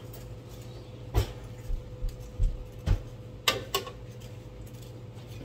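A metal spoon scraping and tapping against a small mesh strainer and glass bowl while sifting ground powder, giving several short, light clicks at uneven intervals. A steady low hum runs underneath.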